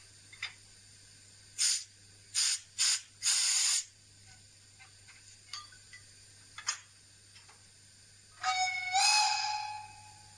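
Steam-locomotive sound played through the small speaker of an N-scale BR 80 model's D&H sound decoder, using a BR 70 sound project: four short hissing steam bursts, the last one longest, then a few faint clicks, then one whistle blast about eight seconds in. A steady electrical hum sits underneath.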